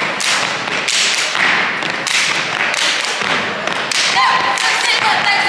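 Step team stomping and clapping in unison on a hardwood gym floor, a rapid run of thuds and sharp claps. A voice calls out about four seconds in.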